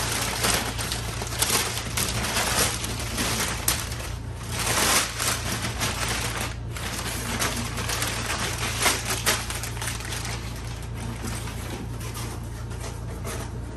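Crumpled packing paper rustling and crackling continuously as it is unfolded and searched through by hand.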